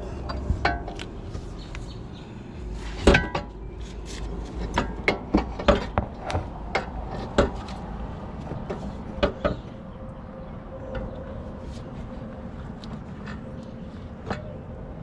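Irregular knocks and clanks of metal parts and tools being handled during CV axle work, loudest about three seconds in, with a run of quicker knocks over the next few seconds. Quieter after that, with a faint steady hum underneath.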